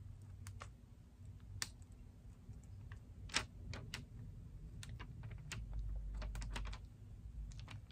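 Faint, scattered light ticks and crackles from the clear plastic film on a diamond painting canvas as it is held and flexed, with one sharper tick about three and a half seconds in.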